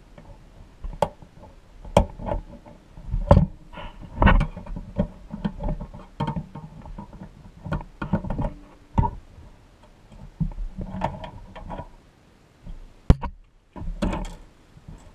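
A hand tool clinking and scraping against the pressed-steel body of a vintage Tonka pumper fire truck as its tabs are pried and bent during disassembly: irregular metal clicks and knocks, some with a brief ring.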